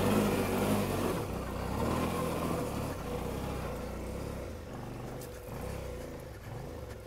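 Motorcycle engine running, its sound growing gradually quieter, over a steady hiss.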